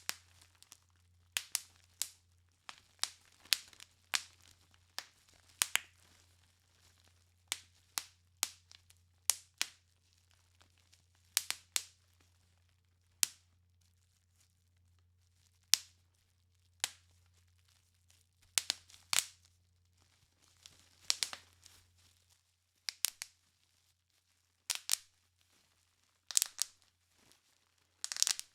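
Plastic bubble wrap being popped by hand: sharp, irregular pops, sometimes single and sometimes several in quick succession, with the crinkle of the plastic sheet between them.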